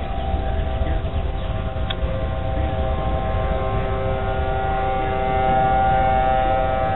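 Outdoor civil-defense warning sirens wailing together for a severe-weather alert, several steady tones at different pitches at once. The sound swells louder about five and a half seconds in as a rotating siren turns toward the listener.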